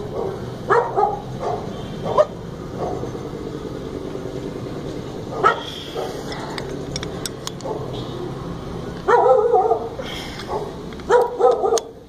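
A dog barking in short, separate bursts: a few scattered ones early on, then a closer run of barks over the last three seconds.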